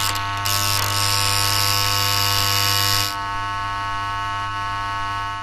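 Electric buzzing sound effect for a lightning-bolt logo: a steady, loud hum with a sizzling crackle over it for the first three seconds or so, then the hum alone.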